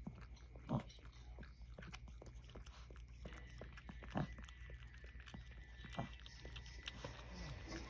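Mother dog licking and mouthing at her newborn puppy's birth sac: soft wet licks and mouth clicks, with three louder short sounds about a second in, around four seconds and around six seconds.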